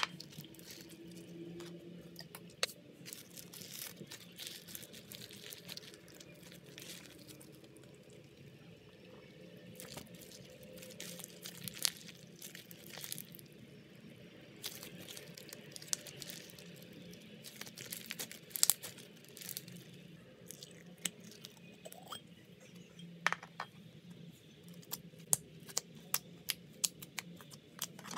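Jelly cube slime, clear glue slime mixed with sponge cubes, being stretched and squeezed by hand, giving irregular crunchy crackles and sharp pops that come thickest near the end.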